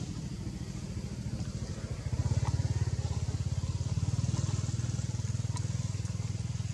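An engine running steadily with a fast, even pulse, getting louder about two seconds in.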